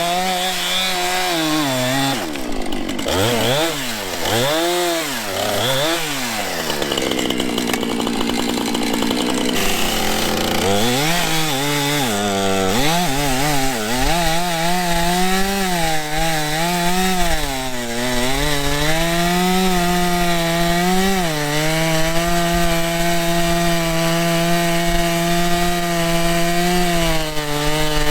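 Two-stroke chainsaw bucking the trunk of a fallen tree, its engine pitch repeatedly rising and falling as the throttle is worked and the chain bites into the wood. From about two-thirds of the way through it settles into a steady, lower-pitched run under load in the cut.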